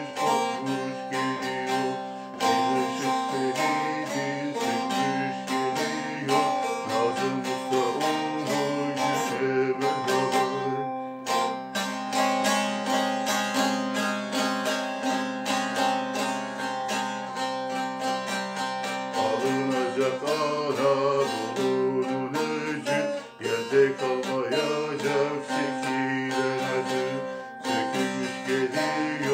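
Instrumental passage of a Turkish folk song on plucked strings, with fast picked and strummed notes over steady held tones.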